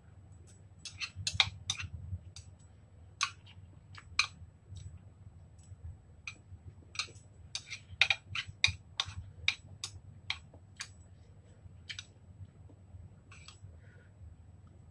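Metal chopsticks clicking against a ceramic bowl and against each other while noodles are picked up and eaten: sharp, irregular clicks that come in clusters, busiest a few seconds before the middle, then sparser.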